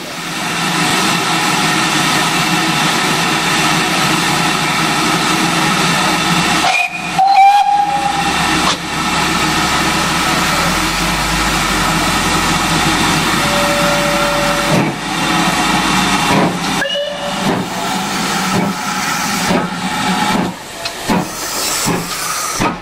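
Great Western prairie tank steam locomotive hissing steadily as steam escapes, with a short whistle blast about seven seconds in and a brief lower toot around fourteen seconds. Near the end it starts to pull away, its cylinder drain cocks blowing.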